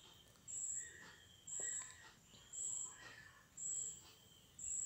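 A high-pitched chirp repeating evenly about once a second, like an insect calling, with faint clinks of a wire whisk stirring cake batter in a glass bowl.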